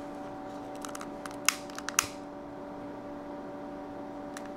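A lighter being clicked to light it for shrinking heat-shrink tubing over a soldered wire: two sharp clicks about half a second apart, with a few smaller ticks around them, over a steady low electrical hum.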